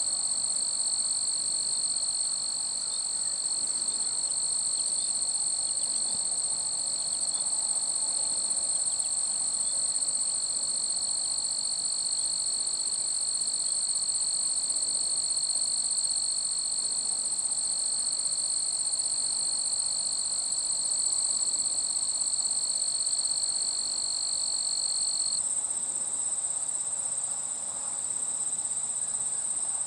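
Insects singing: two steady high-pitched trills run on together, and the lower one stops about 25 seconds in.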